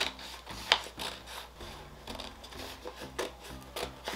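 Heavy cardstock being bent and folded by hand: rubbing and crinkling of stiff paper, with several sharp crackles as it creases, the loudest under a second in.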